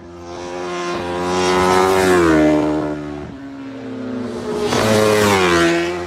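Two racing motorcycles pass flat out one after the other, about three seconds apart. Each engine note swells as the bike approaches and drops in pitch as it goes by.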